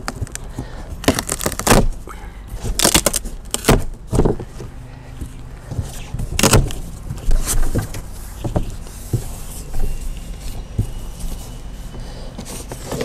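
Packing tape being slit and torn off a large cardboard box, then the cardboard flaps pulled open and rubbed, in a run of short ripping and scraping noises. A steady low hum sits underneath.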